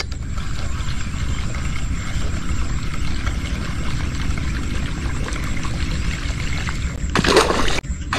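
Steady wind rumble on the microphone beside open water. About seven seconds in comes a short, loud splash at the water surface, where the bait is being worked across the canal.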